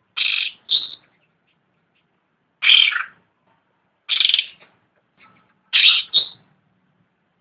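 Cucak rante songbird calling: short calls, some in quick pairs, repeated every second or two with silent gaps between.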